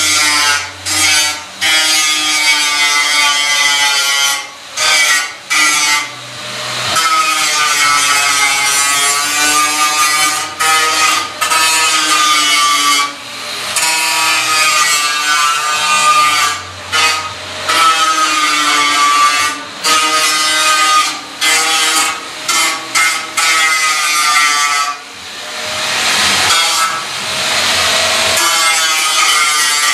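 Angle grinder grinding on a steel oil drum. Its whine sags in pitch and recovers as the disc bites and eases, with many short breaks where it lifts off the metal.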